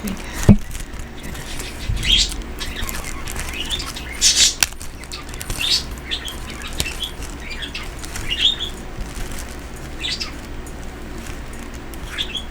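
Pet birds chirping in short, high calls every second or so, with a couple of sharp clicks, one about half a second in and one near the middle.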